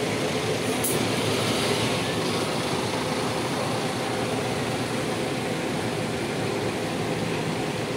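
Bus engine running with a steady, even drone.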